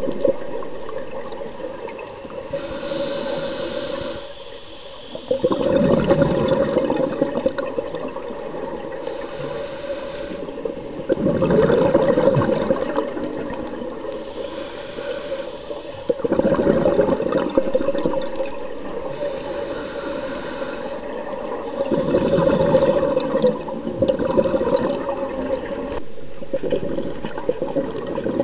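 Scuba diver breathing through a regulator underwater: a faint hiss on each inhale, then a louder rush of exhaled bubbles, repeating about every five to six seconds.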